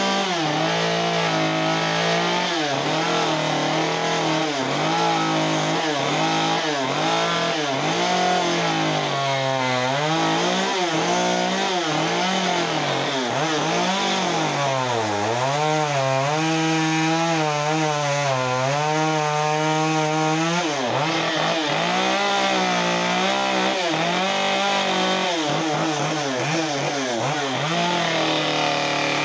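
Chainsaw running at high revs while carving wood, its engine pitch dipping and recovering again and again as the chain bites into the wood and comes free.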